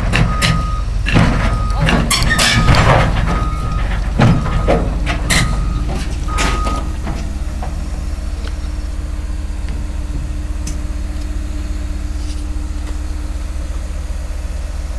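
Caterpillar 321D LCR excavator climbing onto a lowboy trailer: its travel alarm gives repeated short beeps while the steel tracks clank on the deck. After about seven seconds the beeping and clanking stop and the diesel engine idles steadily.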